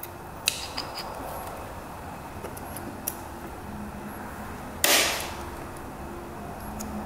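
Hand work on a Honda CR125 two-stroke engine as the power valve clip is unhooked and the side cover worked loose: a few light clicks and taps, then one louder knock with a short rasping tail about five seconds in.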